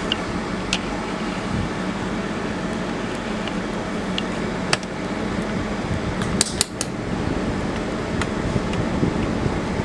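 Steady whirring of a cooling fan, with a few sharp clicks and light metallic clinks, most of them bunched about six and a half seconds in.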